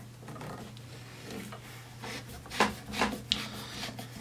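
A rifle's wooden stock rubbing and shifting against the arms of a gun vise as it is handled and repositioned, with a couple of sharp knocks about two and a half and three seconds in.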